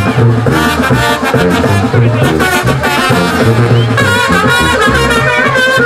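Lively festive band music: wind instruments playing a melody over a steady drum beat.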